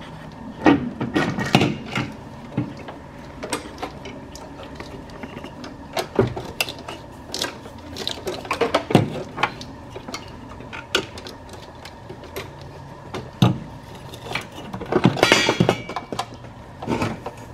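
Irregular metal clunks, knocks and scrapes as a Honda Civic's brake booster is worked loose and pulled out of the firewall, with a longer scraping rattle near the end.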